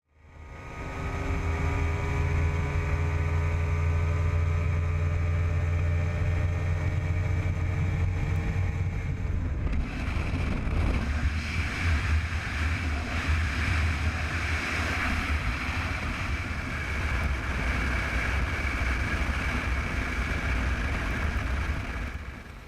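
Bass boat's outboard motor running under way, its pitch climbing slowly over the first nine seconds or so. About ten seconds in, a loud rushing hiss of wind and water joins the steady engine drone, which fades out near the end.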